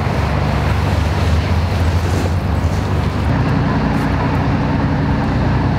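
A steady low motor hum with a rushing noise over it, its pitch shifting about three seconds in.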